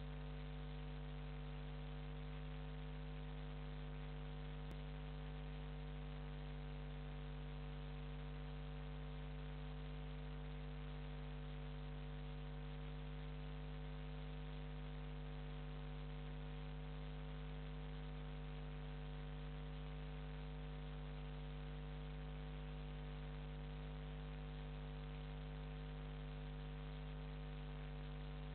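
Steady electrical mains hum with hiss, unchanging throughout.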